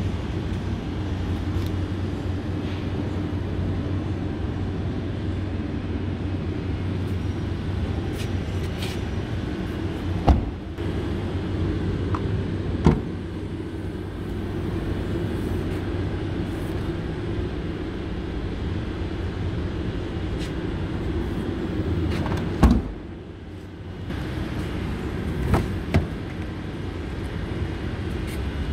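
Doors and tailgate of a Hyundai i20 hatchback being handled: four sharp thumps spread through a steady low rumble. The third thump is the loudest, and the rumble drops briefly right after it.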